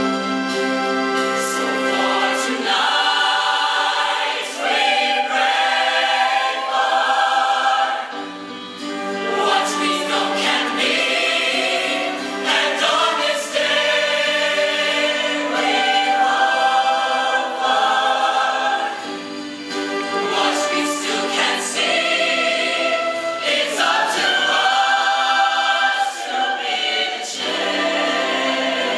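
High school show choir singing sustained chords in harmony.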